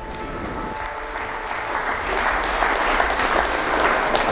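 Audience applauding, many people clapping together; the clapping builds up over the first couple of seconds and then holds steady.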